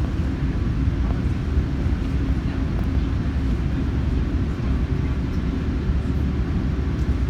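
Airbus A380's Rolls-Royce Trent 900 engines running, heard inside the passenger cabin as a steady low rumble.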